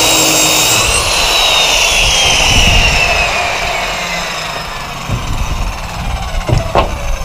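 Circular saw running, then released: its motor whine falls steadily in pitch over several seconds as the blade coasts down. A few light knocks near the end.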